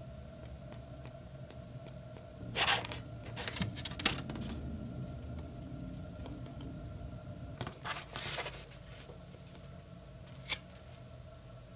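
A card of hot-press watercolor paper rustling and scraping against the tabletop as hands pick it up and handle it, in short bursts about two and a half seconds in, again around four seconds and near eight seconds, with a sharp click a little after ten seconds. A faint steady hum runs underneath.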